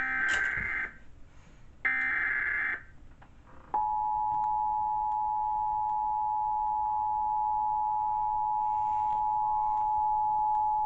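Emergency Alert System broadcast tones: two short, screechy digital data bursts (the SAME header) about a second apart, then the steady two-tone EAS attention signal begins a little under four seconds in and holds without a break.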